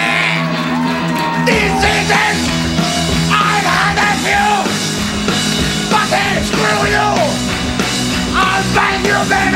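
A live band plays an up-tempo rock number on hollow-body electric guitar and drum kit. The drums come in about a second and a half in, and a voice yells and sings along over the band.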